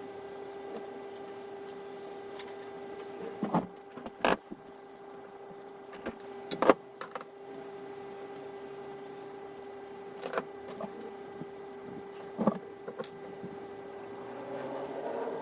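A steady, even-pitched hum runs throughout, and a handful of sharp clicks and knocks break in, as of small tools and parts being handled on a workbench during hand repair work.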